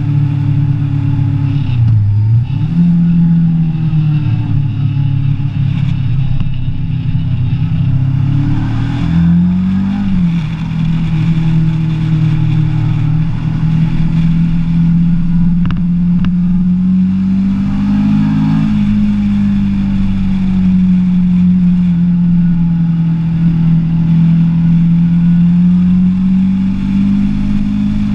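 Kawasaki ER-6n motorcycle's 649 cc parallel-twin engine running under way. Its note drops and climbs back about two seconds and again about ten seconds in, then holds steady, rising a little now and then.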